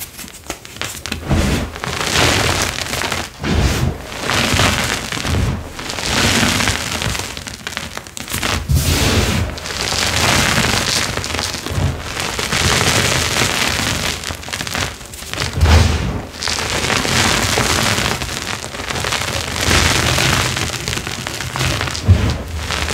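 Flaky dyed gym chalk being crushed and crumbled by bare hands. It crunches and falls back onto a bed of chalk powder in repeated bursts a second or two long, with soft thuds as chunks land.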